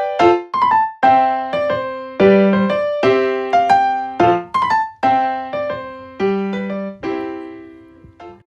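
Background music: a keyboard, piano or electric piano, plays a gentle melody of struck notes and chords, each fading away, and stops abruptly just before the end.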